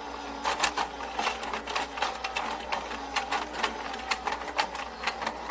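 Battery-powered penguin slide toy running: the motorised staircase whirs steadily while the small plastic penguins clatter up the steps and down the track, making a fast, uneven clicking.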